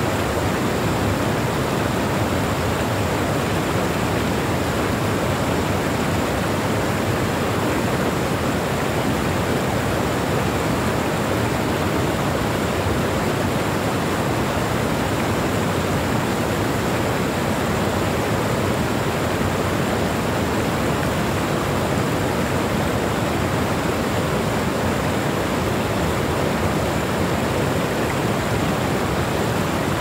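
Waterfall: a wide sheet of fresh water pouring over a low weir and rushing over rocks, a steady, unbroken rush of water.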